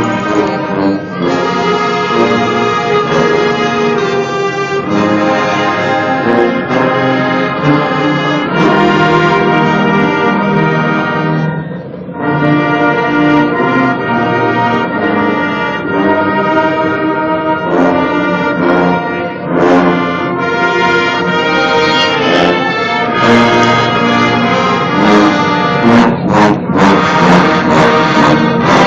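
Marching band brass section playing a slow church hymn in full, held chords. The phrases pause briefly about twelve seconds in, and drum and cymbal hits join in the last several seconds.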